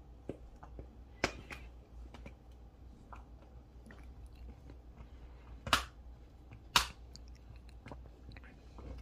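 A dog chewing and crunching on a bone, with scattered sharp cracks, the two loudest about a second apart past the middle.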